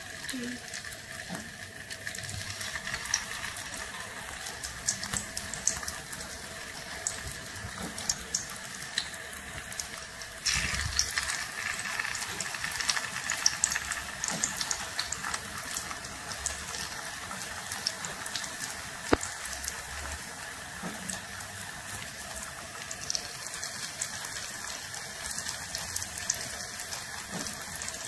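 Vegetable spring rolls frying in hot oil in a pan: a steady sizzle with frequent crackles and pops, growing louder about ten seconds in.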